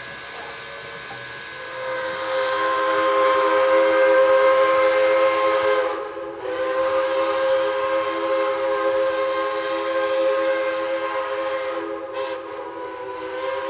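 Pennsylvania Railroad 643's three-chime steam whistle blowing a chord of three steady tones over hissing steam. It starts about two seconds in with one long blast, breaks briefly, sounds a second long blast, then breaks again and trails off in a short fading note near the end.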